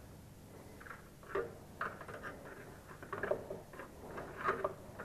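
Quiet, irregular clicks and scrapes of a spanner working the front shock absorber's top-plate nut on a scooter, a few small taps a second apart.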